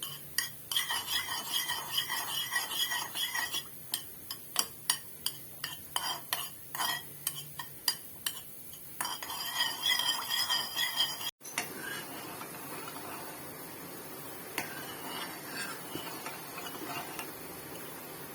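Metal spoon stirring and scraping in a small pan of ghee melting on a low flame, with many quick clinks against the pan. After a cut about 11 seconds in, it gives way to a softer, steady sizzle of the heating ghee.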